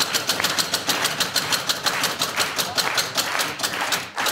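Game-show prize wheel spinning: its flapper clicks rapidly against the metal pegs on the rim, the clicks gradually slowing as the wheel loses speed.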